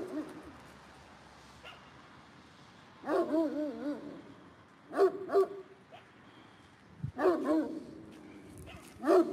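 A dog barking in four bouts a couple of seconds apart; some barks are drawn out and wavering in pitch, others come short and in pairs.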